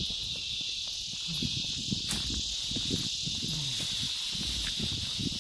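A steady, high insect chorus runs unbroken throughout. Soft, irregular low sounds of walking and camera handling lie beneath it.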